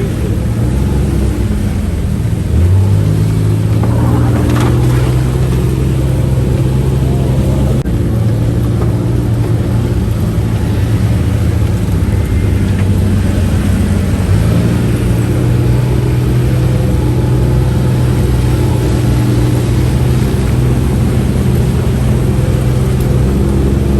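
UTV engine running steadily while the vehicle is driven, its pitch stepping up and down a few times.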